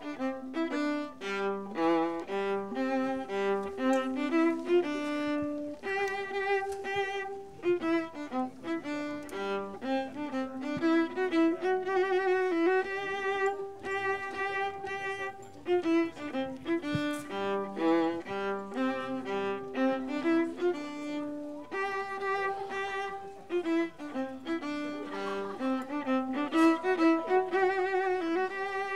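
Violin playing a melody in steady, stepping notes, with a phrase that returns partway through.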